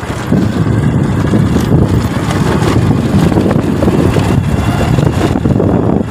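Wind buffeting a phone microphone while riding a motorcycle, a loud, uneven rumble over the engine running. The rush drops away suddenly near the end.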